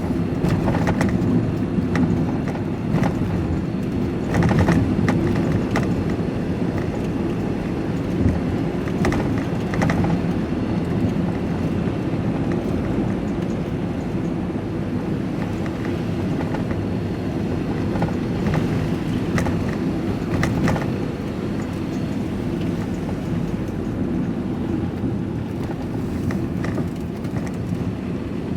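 Steady engine and tyre noise of a van being driven, heard from inside the cab, with occasional short knocks and rattles as it goes over a bumpy road.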